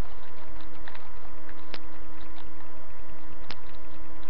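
Steady loud electrical hum and hiss, with a sharp click about every second and three quarters. Fainter small plastic clicks of a Rubik's Cube's layers being turned come in between.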